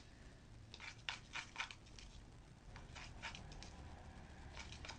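A utensil stirring a sticky glue-and-Coca-Cola slime mix in a bowl, giving short clicks and scrapes in small clusters, the busiest about a second in. The mix is still too thin: too much Coca-Cola and too little glue.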